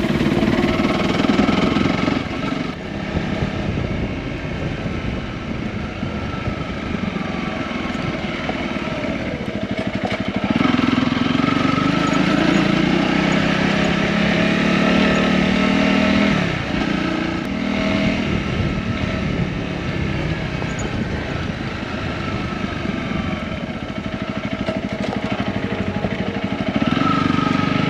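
Honda CRF250 dual-sport motorcycle's single-cylinder engine running under way, its pitch and level rising under throttle and easing off again in several spells.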